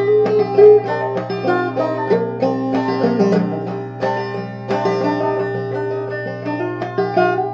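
Banjo played clawhammer style in double C tuning: a continuous run of plucked notes.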